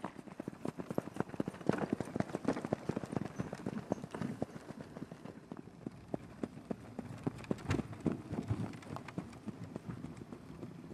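Horses' hooves clip-clopping, a dense, irregular run of hoofbeats.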